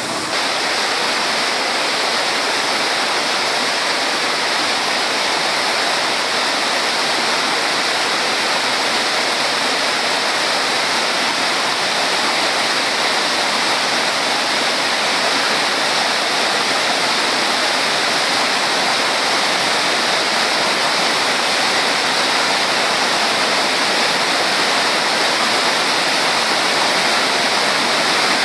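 Waterfall: fast, muddy river water pouring over a rock slope and churning into white water, a steady, loud rushing.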